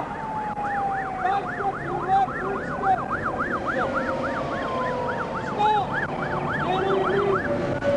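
Emergency sirens wailing. One is a fast yelp sweeping up and down several times a second, over a second, slower wail gliding up and down. These are typical of police cars converging on the stop.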